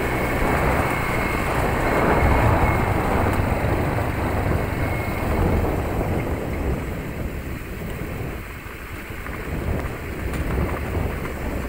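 Motor scooter riding along a rough lane: its small engine runs under heavy wind buffeting on the microphone, easing off somewhat about halfway through.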